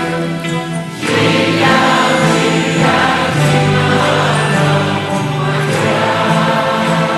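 Music: a choir singing long held notes over accompaniment, swelling louder and fuller about a second in.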